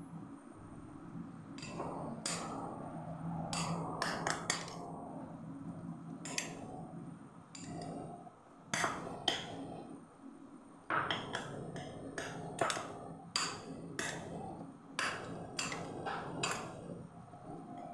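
Metal spoon stirring in a ceramic bowl, clinking sharply against its sides with a soft scraping in between. The clinks come irregularly, sparse at first, then in a quick run through the second half.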